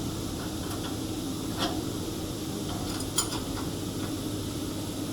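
Two sharp metal clinks, about a second and a half apart and the second louder, from hand tools and steel parts while a band saw cutting machine is being fitted and its fasteners tightened. A steady low hum runs underneath.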